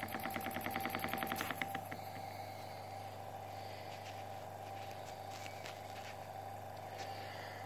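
1947 ADE Swedish toy steam engine running on air, beating quickly for the first couple of seconds while fingers cover its leaking brass boiler seams. The beats then stop, leaving a steady hum and hiss of air.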